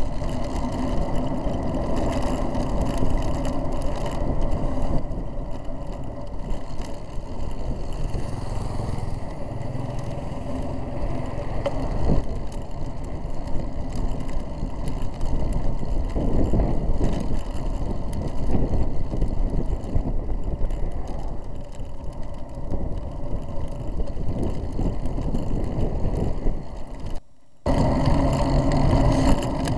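A bicycle riding along an asphalt road, heard through a frame-mounted camera: a steady rumble of tyre, road and wind noise. There is a sharp knock about twelve seconds in, and the sound drops out for about half a second near the end.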